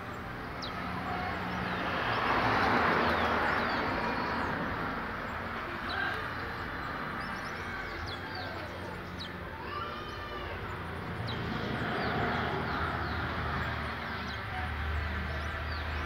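Caged towa-towa seed finches giving short, scattered chirps and brief song notes, over a rushing background noise that swells twice.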